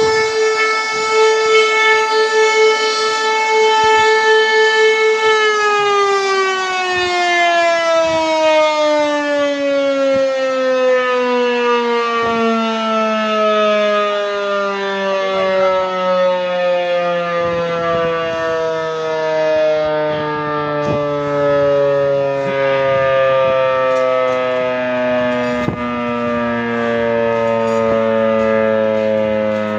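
SAD 4 kW fire-station alarm siren sounding the call-out for the volunteer fire brigade: a loud, steady high wail for about five seconds, then the pitch slides slowly and smoothly down as the siren winds down, still sounding low at the end.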